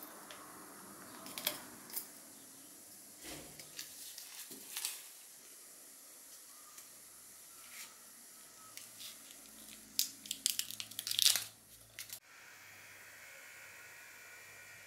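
Masking tape being peeled off the painted metal body of an old hand oiler: short tearing rasps and crinkling with light handling clicks, thickest near the end, then cutting off suddenly. A faint steady hum follows.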